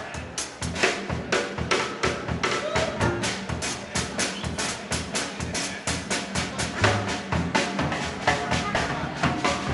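Live swing band playing, with the drum kit out front: snare, rimshots and bass drum in a steady fast beat over a bass line.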